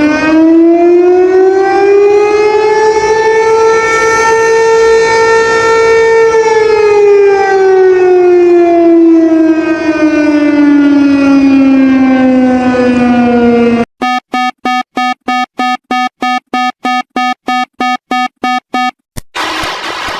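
Emergency-alert siren tone, buzzy and full of overtones, wailing slowly up in pitch, holding, then winding back down over about fourteen seconds. It then switches abruptly to a fast beeping alarm, about three beeps a second, for about five seconds, and breaks off with a new alarm sound starting near the end.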